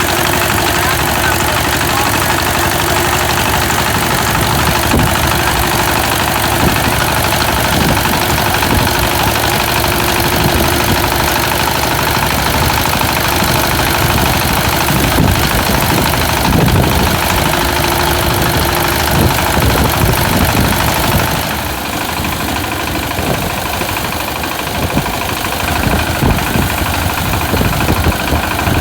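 Engine of a small locally built rice-harvesting machine running steadily, dropping slightly in level about three quarters of the way through.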